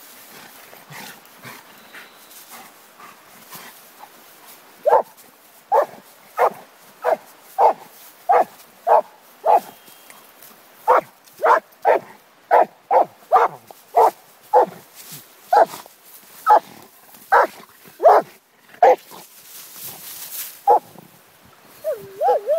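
A dog giving a long run of short, evenly spaced barks, about one and a half a second, faint at first and loud from about five seconds in until shortly before the end.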